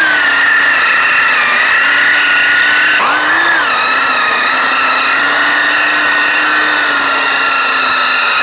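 Electric drill spinning a 92 mm Milwaukee Hole Dozer bi-metal hole saw as it cuts into hardwood timber, the motor running with a steady whine. About three seconds in the motor speed drops briefly and picks back up.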